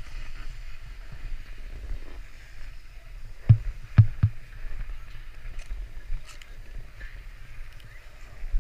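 Skis sliding slowly over packed snow with a steady low rumble, broken by three sharp knocks about three and a half to four and a quarter seconds in.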